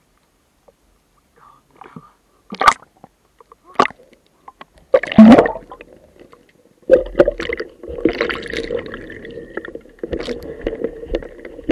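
A few short splashes of water at the surface, then muffled underwater gurgling as a spearfishing diver goes under with his speargun, with a steady hum beneath from about seven seconds in.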